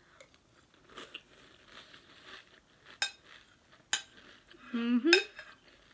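Crispy strawberry cereal in milk being chewed with faint crunching, and a metal spoon clinking against the bowl twice, about a second apart. Near the end a short hummed "mm" of voice.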